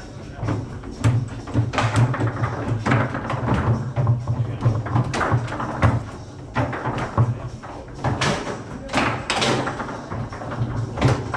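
Foosball being played: the ball and the rod players knocking against each other and the table walls in irregular sharp clacks, over background music.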